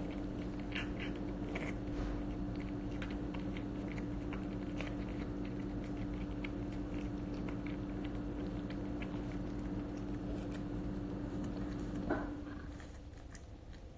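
A cat chewing and lapping raw chicken from a stainless-steel bowl: a string of small wet clicks that stop about twelve seconds in, when she lifts her head. Under it runs a steady low hum, which cuts off with a knock at the same moment.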